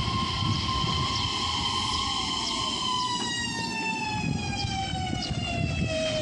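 JR East E131-series electric train pulling into a station, its motor inverter whine gliding steadily down in pitch as it brakes, over the low rumble of the wheels on the rails.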